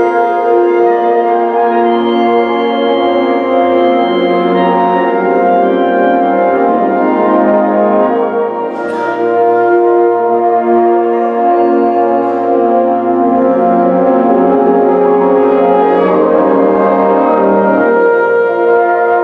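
Symphonic wind band playing sustained chords, with a short noisy swish about nine seconds in.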